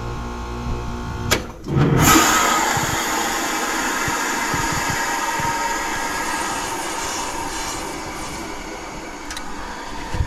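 Goodman heat pump switching into defrost: a click, then about two seconds in a sudden loud whoosh of refrigerant as the reversing valve shifts, the hiss slowly dying down. This is the sign that the outdoor coil got cold enough for the defrost control to switch the unit over.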